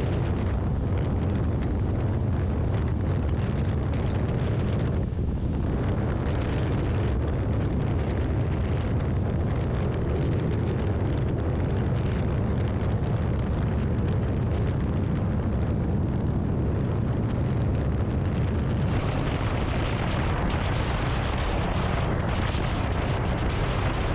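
Wind buffeting an action camera's microphone on a motorcycle at highway speed: a steady, heavy low rumble with hiss above it. About two-thirds of the way through, the hiss turns brighter and louder.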